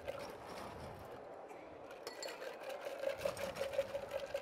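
A small motorised machine whirring with a rapid, even pulse. It eases off about a second in and picks up again near three seconds.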